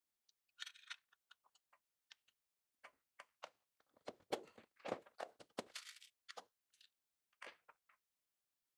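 Tools and parts being picked up and set down on a rubber-matted workbench: a scatter of short knocks, clunks and taps, busiest in the middle, as a cordless drill and a claw hammer are moved about.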